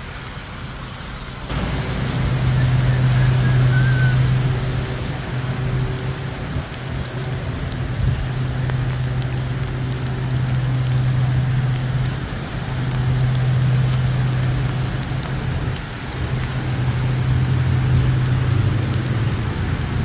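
Steady tropical rain falling on wet pavement, with a low steady hum underneath. The sound gets suddenly louder about a second and a half in.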